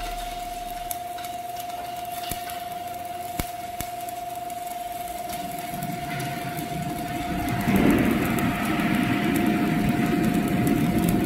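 Electric arc welding on a steel pipe joint: the arc crackling and buzzing continuously, with a steady high whine alongside. The crackle grows louder about two-thirds of the way through.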